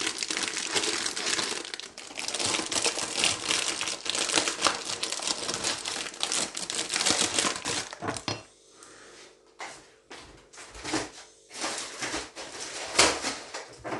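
Plastic packet of sponge-finger biscuits crinkling and rustling as it is handled, densely for about eight seconds, then a few scattered rustles and one sharp crackle near the end.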